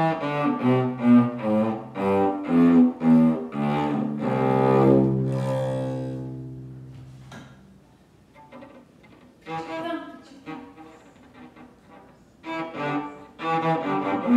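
Solo cello playing an étude, bowed: a run of short notes, then a long low held note about four seconds in that fades away. A quieter, sparser passage follows, and quick notes come back near the end.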